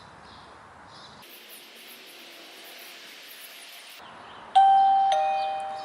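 Alierkin wireless doorbell's plug-in chime receiver sounding a two-note ding-dong, high note then lower note, about four and a half seconds in; both notes ring on. It shows the signal from the push button, pressed more than half a block away, is still getting through.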